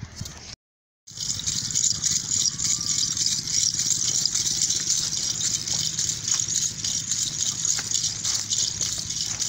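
A steady rushing, hissing noise with a low hum beneath it, starting abruptly about a second in after a brief dropout to silence.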